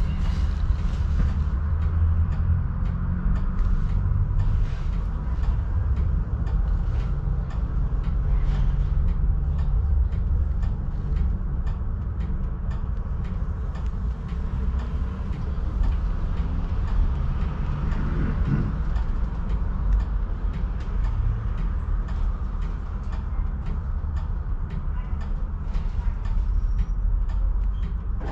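Tram running along its tracks: a steady low rumble of wheels on rail with scattered light clicks and rattles over it.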